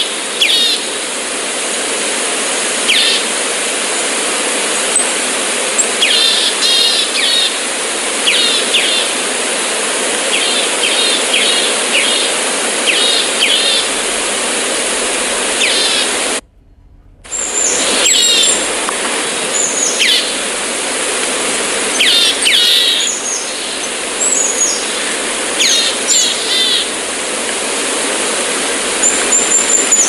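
Small birds chirping in short, repeated high trills over a steady hiss of background noise. The sound cuts out for under a second about halfway through.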